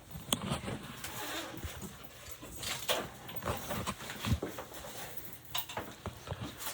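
Irregular rustling with scattered clicks and small knocks: handling noise as people shift position and set things down.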